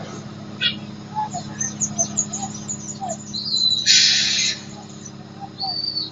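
Heavy engines running with a steady low drone, birds chirping over it, and a short loud hiss about four seconds in.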